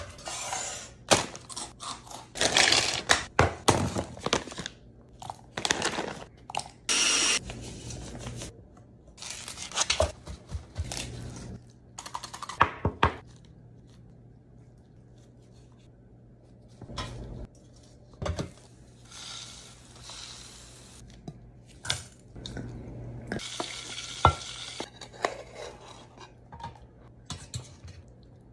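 Kitchen cooking sounds: a knife chopping red chilli peppers on a wooden cutting board in a run of sharp knocks, clinks of glass bowls and utensils as shrimp are coated in spice, and the hiss of frying oil later on.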